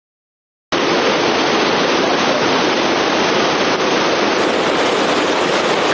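Steady, loud rushing of a waterfall, cutting in suddenly out of silence a little under a second in.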